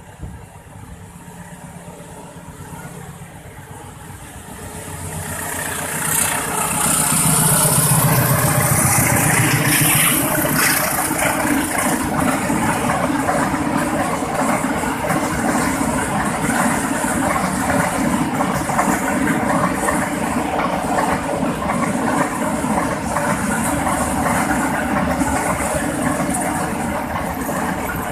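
A diesel-electric locomotive approaching and passing close by, its engine sound building to a loud peak about six to ten seconds in. It is followed by a long string of empty flat wagons rolling past, with steady wheel-on-rail running noise.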